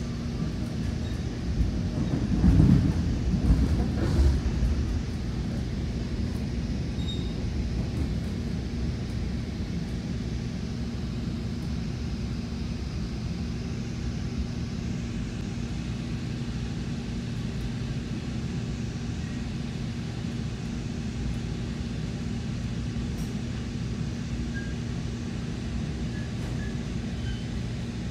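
Steady low rumble and hum inside a Nippon Sharyo bi-level Metra coach, with a few louder low knocks about two to four seconds in.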